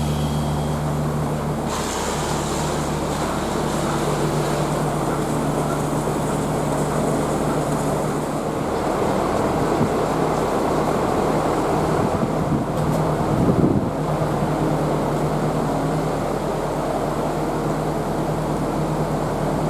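An engine running steadily, a low hum under a rushing noise, swelling briefly about two thirds of the way through.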